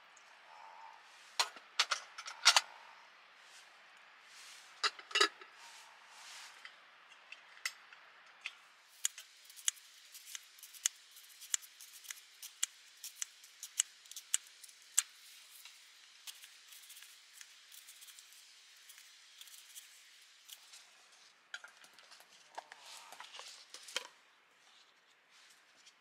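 Metal pot clanks a couple of seconds in, then an Opinel knife chopping an onion on a wooden cutting board: a run of short, sharp cuts about two a second, with softer handling noises near the end.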